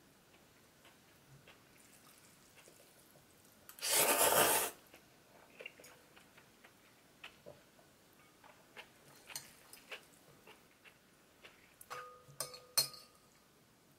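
Eating noodles from a glass bowl with a metal fork and spoon: soft chewing and small scrapes and taps of the utensil on the glass. A loud slurp lasts just under a second about four seconds in, and near the end the spoon clinks against the glass bowl a few times, ringing briefly.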